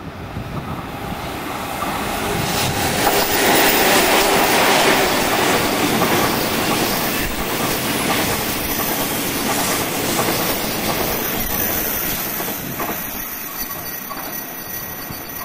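Freight train of oil tank wagons, headed by two EF64 electric locomotives, rolling past with wheels clattering over the rail joints and some wheel squeal. It is loudest about four seconds in and slowly fades toward the end.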